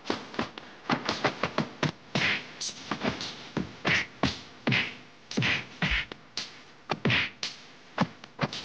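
Kung fu fight sound effects: a fast run of punch and kick whacks and swishes, about two to three a second, several of them sweeping down in pitch.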